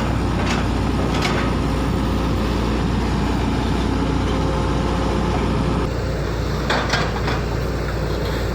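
Heavy diesel earthmoving machinery running steadily, with a few sharp knocks: one about half a second in, one a little later, and a short cluster near the end.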